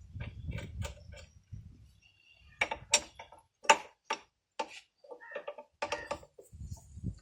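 Metal clicks and clinks of a 12 mm box spanner working on the bolts of a motorcycle's disc brake caliper, in irregular clusters with short metallic ringing.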